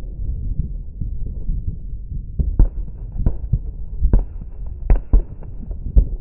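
Distant aerial fireworks going off: a quick run of about seven dull, muffled booms from about two seconds in, over a steady low rumble.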